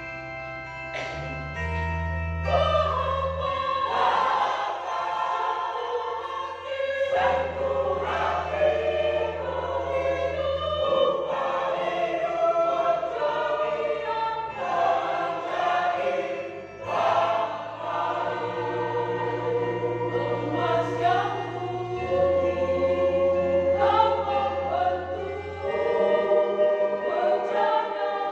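Mixed church choir singing in parts, accompanied by electronic organ or keyboard with long held bass notes. The choir comes in about two and a half seconds in, over the held organ chords.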